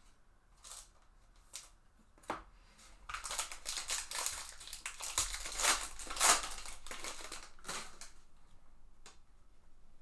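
Foil wrapper of a Panini Contenders Baseball card pack crinkling as it is torn open by hand. A few light clicks come first, then a dense crackle of foil from about three seconds in, lasting about five seconds.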